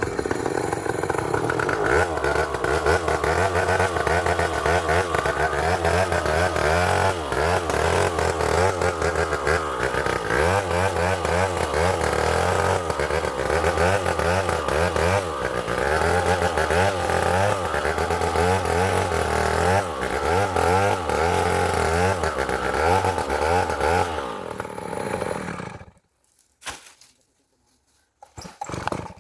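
Two-stroke chainsaw cutting through jackfruit wood, its engine pitch rising and falling over and over as the chain bites and eases. Near the end it cuts off abruptly into near silence.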